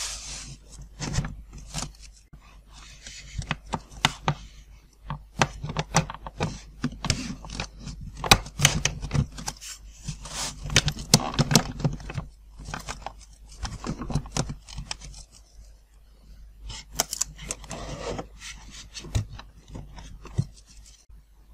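Handling noise of foam model-aircraft wing panels being fitted onto their joiner tubes and against the fuselage. Irregular clicks and knocks come with stretches of foam rubbing and scraping.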